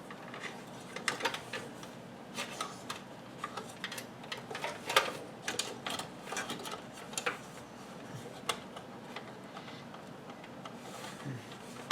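Irregular small clicks and light knocks of hands working the CPU heatsink and its retention clips inside a desktop computer case, as the heatsink is pried loose.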